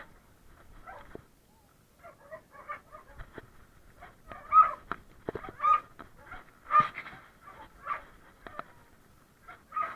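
Animal calls, short and repeated about once a second, loudest in the second half.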